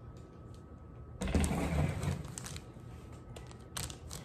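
Handling noise: a rustling scuffle about a second in, then a few light knocks near the end as a plastic Gatorade bottle is set down on the table.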